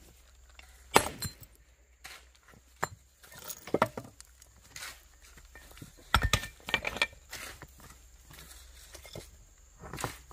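Rocks knocking and clinking against one another in a scatter of sharp, irregular impacts, the heaviest a thud about six seconds in.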